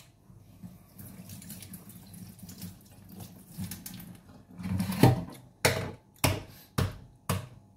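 Kitchen mixer tap running water into a stainless steel sink, a soft steady splashing hiss. In the second half, a louder knock near the middle and then a series of sharp knocks about every half second, louder than the running water.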